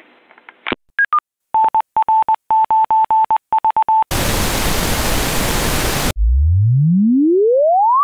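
Audio test signal: a Morse code ID keyed as a steady beep, then two seconds of pink noise, then a pure tone sweeping steadily upward from the deep bass. Just before the Morse there is a click and two short beeps, the second lower than the first.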